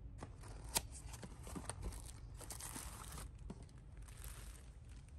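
Faint handling of a grow-kit package: a cardboard box opened and a thin plastic bag crinkling, with scattered small clicks and rustles. A sharp tap comes under a second in.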